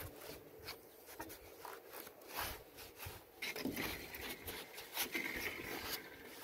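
Sponge wiped over a clay ridge tile and its mortar joint in short, irregular rubbing and scraping strokes, cleaning off excess mortar.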